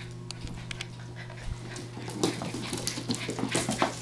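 Puppies scampering on a hardwood floor, their claws clicking and skittering on the boards; the scrabbling gets busier about halfway through.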